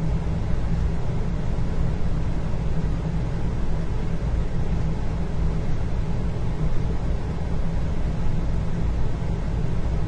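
Indoor room ambience: a steady low rumble and hum with a faint hiss above it, and no distinct events.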